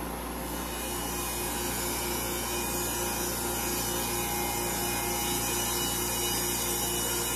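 Vertical milling machine running, its end mill cutting a relief into a wooden storage tray: a steady spindle hum under the hiss of the cut, which fills out about a second in as the cutter bites into the wood.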